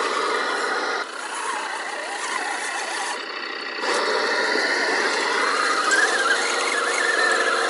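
Electric motor and geared drivetrain of a scale RC Land Rover Defender 90 crawler whining as it drives through a deep muddy puddle. The whine rises in pitch about five seconds in, and the sound changes abruptly about a second in and again near four seconds.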